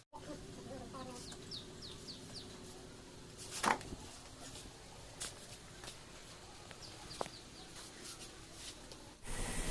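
Quiet workshop ambience: small birds chirping in quick runs of short falling chirps, twice, with scattered clicks and one louder knock about a third of the way in.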